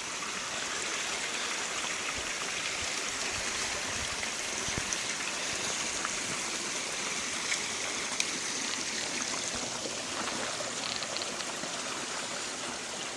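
Steady rushing of a flowing stream, with a few faint knocks over it.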